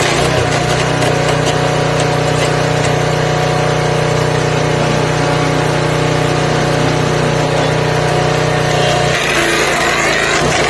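Forest Master FM6DD wood chipper's 6 hp petrol engine running steadily at speed. A little over nine seconds in, the engine note drops and a rough rasping noise joins it as a stick is fed into the cutters.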